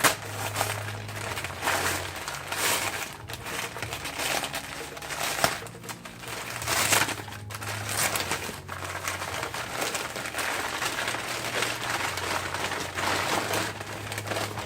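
Wrapping being pulled off a packed item by hand: continuous crinkling and rustling with irregular louder crackles.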